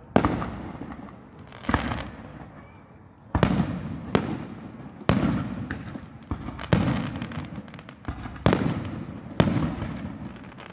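Aerial firework shells bursting: about ten sharp booms, roughly one a second, each trailing off in a rolling echo.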